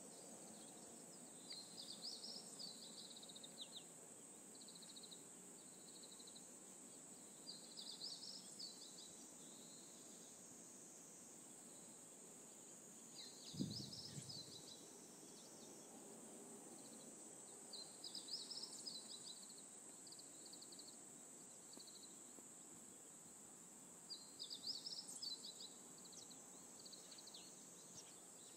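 Faint early-morning outdoor ambience: a bird's short song phrase repeating about every six seconds, with smaller trailing notes, over a steady high-pitched insect drone. A single dull thump about halfway through.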